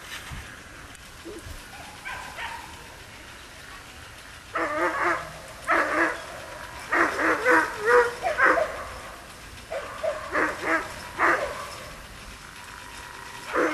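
A dog barking in short runs of quick yelps, beginning about four and a half seconds in and recurring until the end.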